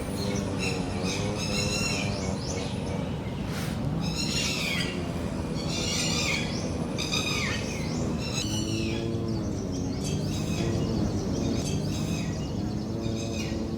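Birds calling repeatedly, each call a quick sweep downward in pitch, coming every second or two. Underneath is a steady low rumble with faint wavering low tones.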